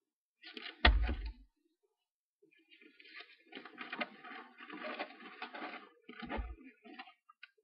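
Paper pages of a spiral notebook rustling as they are handled and flipped over, with small crinkles and clicks. There is a sharp bump with a low thud about a second in, and another thud near six seconds.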